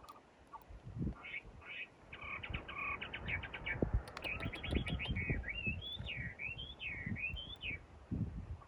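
A small bird singing: rapid chirping trills, then a warbling phrase of whistles sweeping up and down, with scattered low knocks and thuds underneath.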